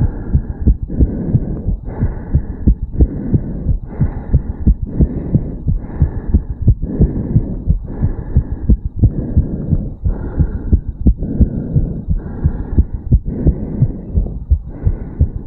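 A man's heartbeat picked up at the chest over the mitral valve area, beating fast and hard in an even repeating rhythm of heart-valve closures, raised by a jog just before.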